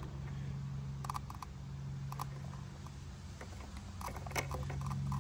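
Light, scattered clicks of e-bike wiring bullet connectors being handled and pushed together by hand, over a steady low hum that grows a little louder near the end.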